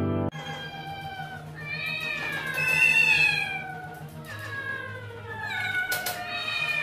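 Domestic cats yowling at each other in a standoff: several long, drawn-out, wavering calls one after another, the loudest about three seconds in.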